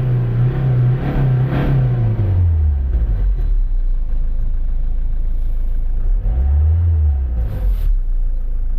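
Citroen DW10CTED4 2.0-litre four-cylinder diesel revved twice from idle: a long rev that falls back to idle about three seconds in, then a shorter blip about six seconds in. The revving is meant to bring out a high-pitched buzz that the owner says appears above 3,000 to 4,000 rpm.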